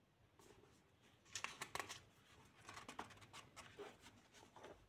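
Pages of a paperback book being leafed through by hand: soft paper rustling, with a cluster of sharp page flicks about a second and a half in.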